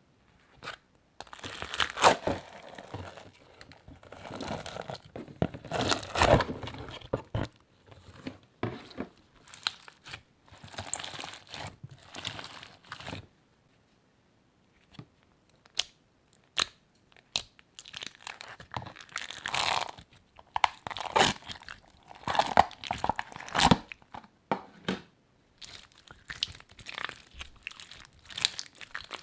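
Slime being squished and mixed by hand, in irregular bursts of crackly squishing with many small clicks. There is a short pause about halfway through.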